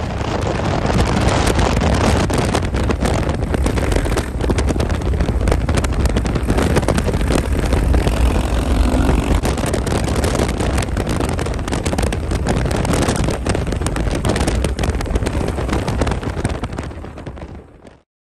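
Vehicles travelling at highway speed: a steady rush of wind on the microphone and road noise with a heavy low rumble. It cuts off suddenly near the end.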